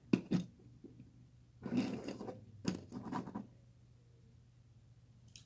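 Handling noise from a die-cast Hot Wheels toy car being tilted over and set back down on a table: a sharp click just after the start, then two short bursts of scraping and rubbing about two and three seconds in.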